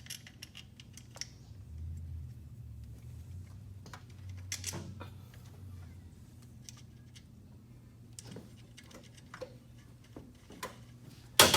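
Scattered metallic clicks and knocks of hardware being handled while a hydraulic quick-coupler mount is bolted back together, with one loud clank near the end, over a low steady hum.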